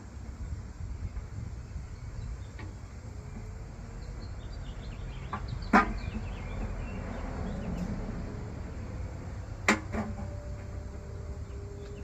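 Oil pan being worked down onto the studs of a Chevy 350 small-block over a new gasket: light handling noise with two sharp knocks about four seconds apart, the first about six seconds in.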